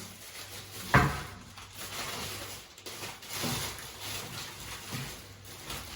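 Items being handled: a sharp knock about a second in, as of something set down or bumped, then soft rustling of packaging.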